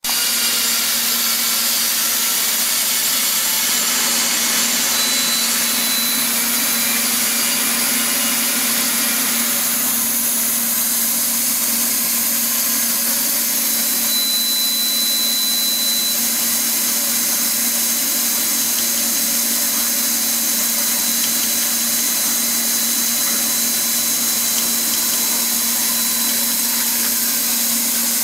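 Chiron FZ08S four-axis vertical machining center running: a steady low hum under a broad hiss, with a faint high whine that comes and goes. The upper hiss eases about ten seconds in.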